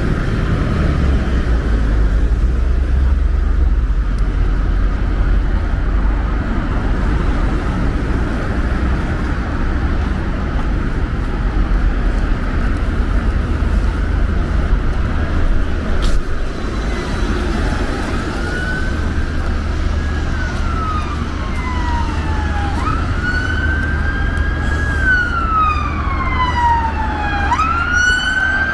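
Steady street traffic rumble, joined about two-thirds of the way in by an emergency vehicle siren wailing in slow falling and rising sweeps, switching to a fast warble at the very end.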